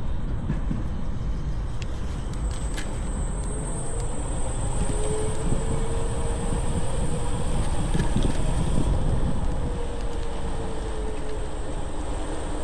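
Riding an electric scooter: wind on the microphone and the wheels rumbling over the pavement. A thin whine rises slightly and falls away in the middle of the ride.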